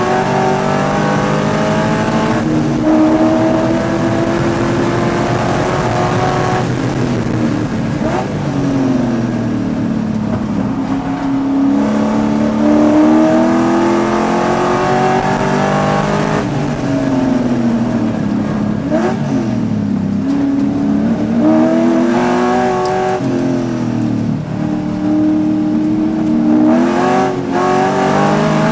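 Race car engine heard from inside the cabin at racing speed, its pitch climbing as it accelerates and falling away as it slows for corners, several times over.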